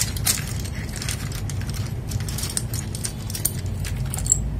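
Plastic PBT keycaps clicking and clacking irregularly as they are handled and pressed onto the switches of an FL Esports MK870 mechanical keyboard, over a steady low hum.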